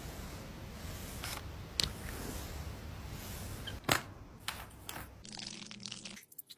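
A few sharp clicks over a steady low hum, the loudest about four seconds in. The hum drops away near the end.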